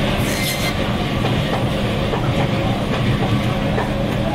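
Band saw running steadily with a low electric hum while its blade cuts through pieces of fish, with small ticks of the blade biting flesh and bone. A short high hiss about half a second in.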